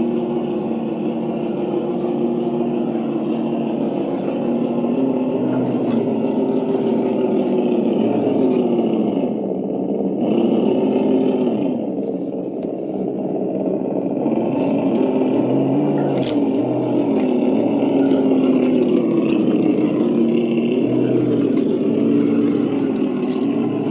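Electric motor and geared drivetrain of an RC rock crawler whining as it drives, the pitch rising and falling over and over as it speeds up and slows down, with one sharp click partway through.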